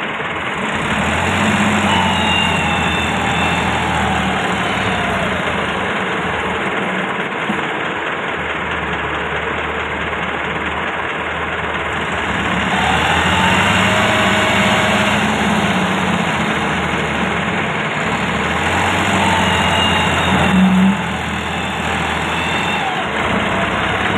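Massey Ferguson tractor's diesel engine working hard under load, straining to drag a heaped sand trolley through soft sand. Its revs swell twice, around thirteen and twenty seconds in, then drop off abruptly.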